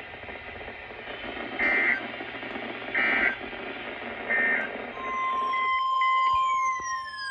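Emergency Alert System data bursts on a radio: three short, raspy, screeching digital chirps about a second and a half apart. From about five seconds in comes a single steady, piercing warning alert tone, over radio hiss, with a few faint falling whistles near the end.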